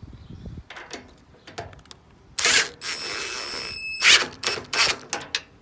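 Clicks, clatters and rattles of hand tools and fender bolts being handled as the bolts are started, with one stretch of steady scraping in the middle.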